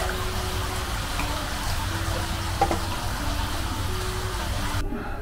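Steady hiss of water running into an open-air hinoki-wood bath, with a low rumble of wind on the microphone, under soft background music of slow single held notes. The water sound cuts off just before the end.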